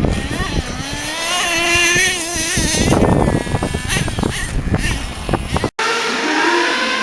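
Small nitro glow engine of a radio-controlled monster truck revving, its pitch rising and wavering as the throttle is worked. It cuts off suddenly near the end, and the same kind of engine sound picks up again.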